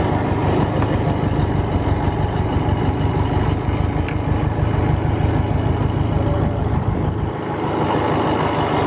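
Boat engine running steadily at idle, an even, fast low throb; the throb briefly weakens about seven seconds in.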